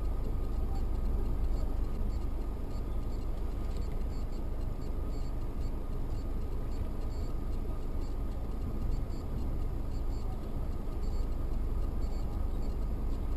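Steady car engine and tyre noise heard from inside the cabin while driving on a snowy road, with a faint ticking now and then.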